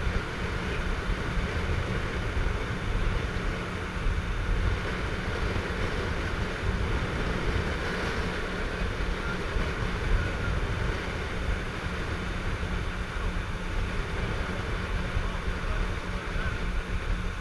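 Motorboat running under way: a steady engine drone mixed with rushing water noise, unbroken throughout.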